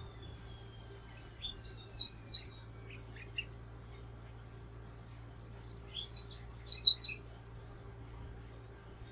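Small songbirds chirping in two bursts of short, sharp, high notes, the first about half a second in and the second around six seconds in, over a faint steady low hum.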